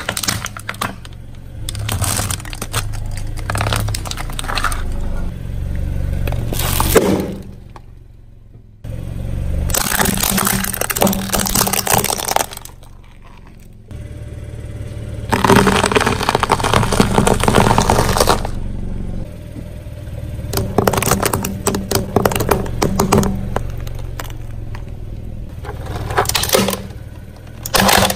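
A car tyre rolling over objects on concrete and crushing them, in repeated bursts of crunching and cracking separated by short pauses, over a low rumble. Near the start it is eggs in a net bag cracking under the tyre; later a pile of crunchy nut bars is crushed.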